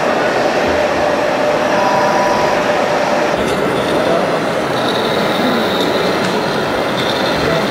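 Steady, loud exhibition-hall din: a continuous rumbling noise with faint high whines running through it and no distinct single event.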